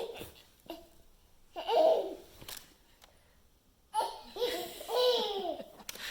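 A young child laughing and babbling in two bursts, high-pitched and with swooping pitch: a short one about two seconds in, then a longer run of squeals and giggles from about four seconds.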